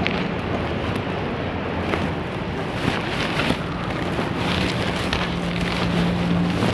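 Crackly rustling handling noise from something rubbing over the recording phone's microphone, over a steady low hum.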